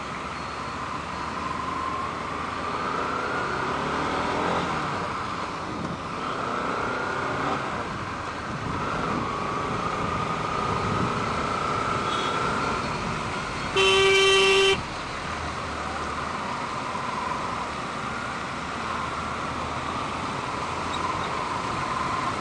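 Bajaj Pulsar RS200 motorcycle riding in traffic: steady road and wind noise, with an engine note that rises and falls. About two-thirds of the way in, a vehicle horn honks once for about a second, the loudest sound.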